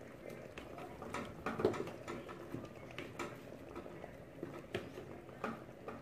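Peeled cassava chunks being moved by hand in a metal pot of water: irregular light knocks and wet splashing as the pieces hit each other and the pot.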